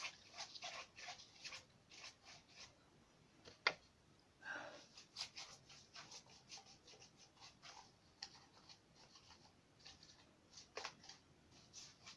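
Faint, repeated scratchy strokes of a paintbrush working ink wash over a paper model boat, with one sharp click a little under four seconds in.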